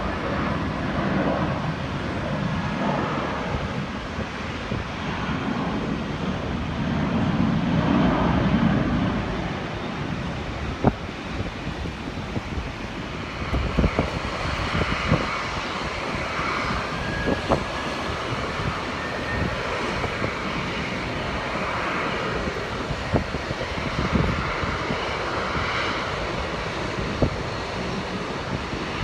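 Airliner jet engines running, a steady rumble that swells for a few seconds near the start, with scattered sharp clicks or knocks through the second half.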